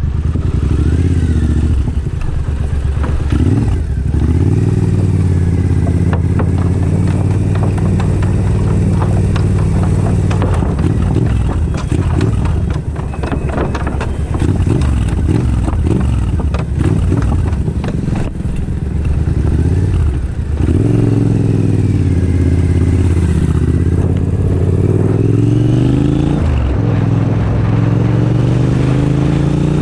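Triumph Scrambler motorcycle with an aftermarket Zard exhaust running, blipped and revved several times so its pitch rises and falls between stretches of lower running.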